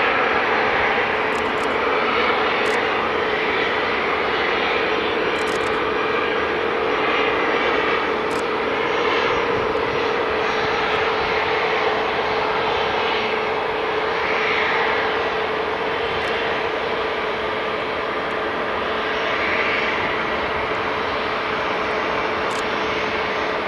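Bombardier Challenger 350's twin Honeywell HTF7350 turbofans running as the business jet rolls out along the runway after touchdown: a steady rushing jet noise with a constant low whine through it.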